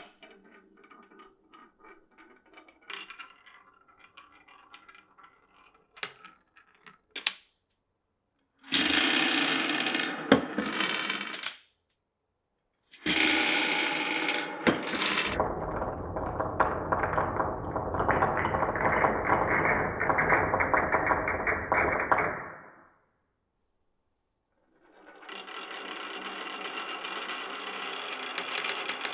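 Marbles rolling down a wooden marble run. At first there is light clicking and tapping, then two loud stretches of rolling and clattering along the tracks, the second one long. After a short hush, rolling starts again near the end.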